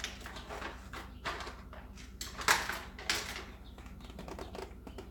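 Plastic lug nut covers clicking and clattering as they are handled and fitted over the lug nuts: a string of sharp taps and knocks, the loudest about two and a half and three seconds in.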